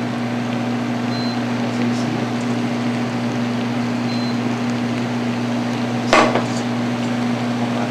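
Steady hum of a kitchen range hood's exhaust fan, with a single sharp metallic clank about six seconds in as a stainless steel pot knocks against a mesh strainer and steel bowl while a fish stock is strained.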